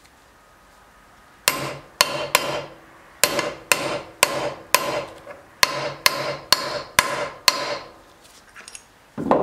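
Ball-peen hammer striking a metal seal driver, tapping an oil seal into the axle housing cover: about a dozen ringing metallic blows in short groups of two or three, stopping after about eight seconds once the seal is seated.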